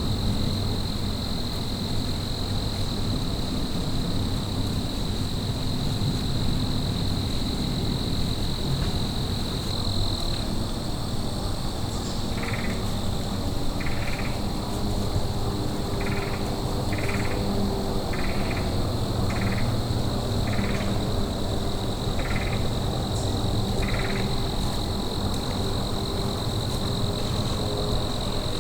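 Outdoor ambience with a steady, high insect drone that drops out for a stretch partway through. In the middle a string of about ten short, high calls repeats roughly once a second. A low, steady rumble runs beneath both.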